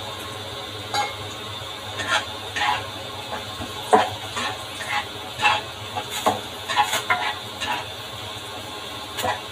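Black spatula scraping and knocking against a stainless steel honeycomb wok as carrot slices are stir-fried, in irregular strokes about once a second over a steady background hiss.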